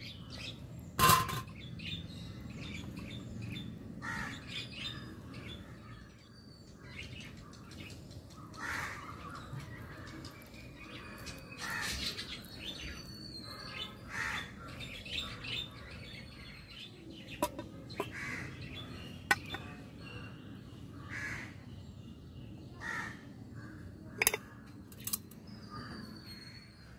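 Birds chirping and calling on and off throughout, with a few sharp metallic clinks of a spoon against a stainless steel plate, the loudest about a second in.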